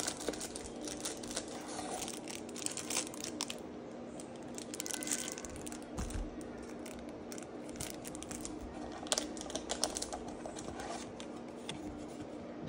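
Crinkling and crackling of clear plastic wrapping and trading cards being handled and pulled out of the box, in irregular bursts of small crackles.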